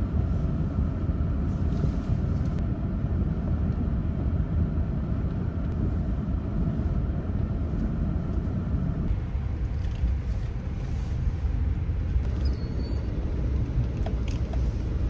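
A motor running steadily under a dense low rumble, with a steady whine that drops out about nine seconds in.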